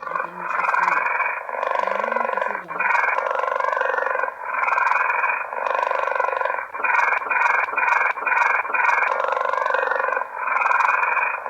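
Tiger growling in long stretches, broken by short pauses every second or two.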